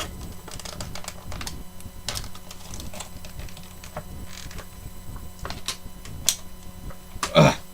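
Scattered light clicks and taps of plastic packaging and a small plastic figure being handled and unpacked, over a steady low hum.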